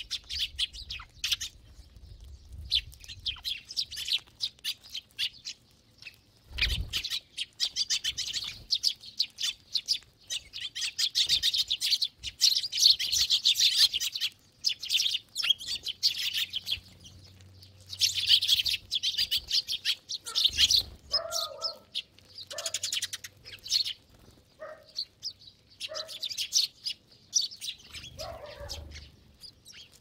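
A flock of Eurasian tree sparrows chirping: many overlapping chirps come in dense bouts every few seconds, with short lulls between. In the last third, a few short, lower-pitched calls from another animal join in.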